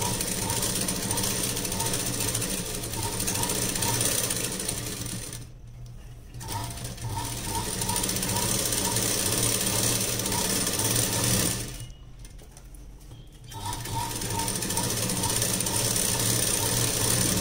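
Domestic sewing machine running as it stitches fabric, with a faint regular tick. It stops briefly twice, about six seconds in and again about twelve seconds in, then runs on.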